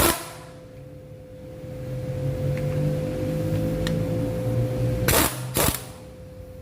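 Sharp knocks from shock absorber and coil spring work, one at the start and two close together about five seconds in, over a steady hum and a low rumble that swells and fades in between.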